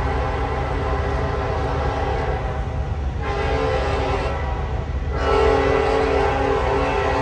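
Norfolk Southern diesel freight locomotive sounding its air horn in several blasts over the steady low rumble of its engine as it approaches. The last blast starts about five seconds in, is the loudest, and is held.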